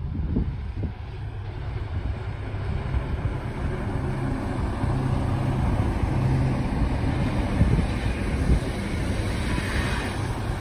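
Yellow overhead-line maintenance railcar passing close by, a steady low rumble of its running gear and engine on the track. Toward the end a red regional multiple-unit passenger train passes on the far track, and the rushing noise swells.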